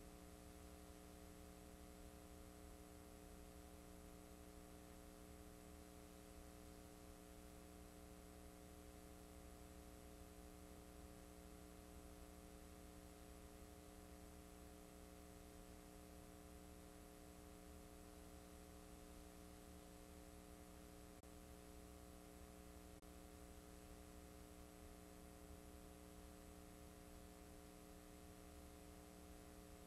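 Near silence: a faint, steady electrical hum over hiss, from blank videotape playing back.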